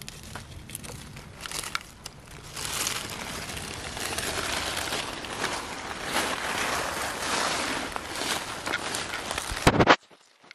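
Dry fallen leaves rustling and crunching underfoot in a continuous crackle, with a louder crunch near the end before the sound cuts off suddenly.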